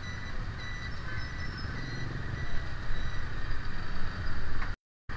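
Busy night-market street noise: a steady low rumble, as of engines and traffic, with short high beeping tones coming and going over it. The sound cuts out completely for a moment near the end.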